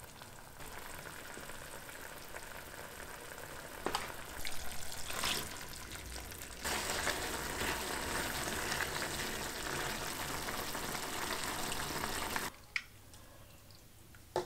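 Food sizzling as it fries in a pan, with a few sharp utensil knocks about four to five seconds in. The sizzling gets louder about halfway through and cuts off suddenly near the end.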